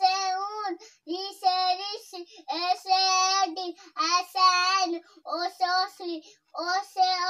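A young child's high voice chanting the letters of the Hindi alphabet in a sing-song, one drawn-out syllable after another with short pauses between.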